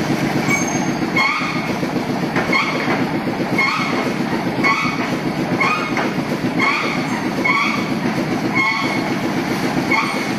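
Heavy machinery running at a concrete pour: a steady engine rumble with a short, rising squeak repeating about once a second.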